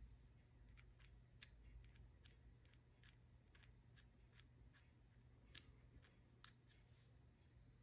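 Near silence broken by faint, irregular light clicks and ticks of a thin steel rule touching a small brass carburetor part held in the fingers, two of them slightly louder near the end.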